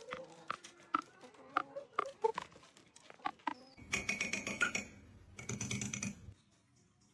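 Parrot making a run of sharp clicks and taps, then two short harsh squawks.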